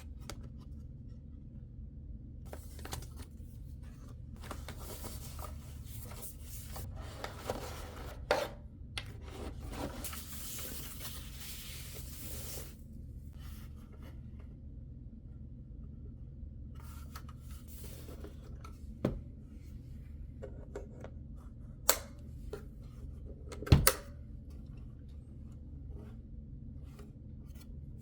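Hands unpacking a boxed keyboard: packaging rustling and being pulled open in bursts, with a stretch of tearing or scraping noise about ten seconds in. A few sharp knocks from the box and its contents being set down stand out later on, over a steady low hum.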